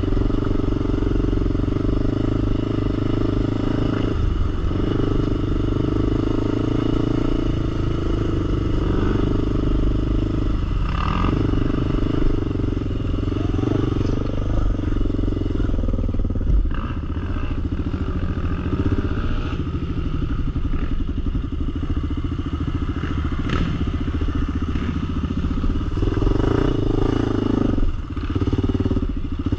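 Four-wheeler (ATV) engine running continuously, its low note growing louder and softer in turns, with a few light clatters.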